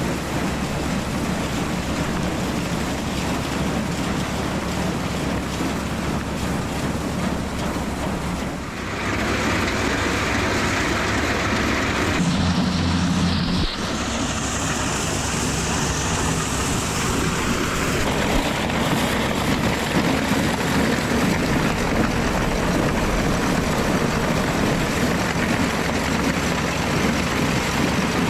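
Tractor engine running, mixed with a dense rush of wind or machinery noise. The sound changes abruptly several times.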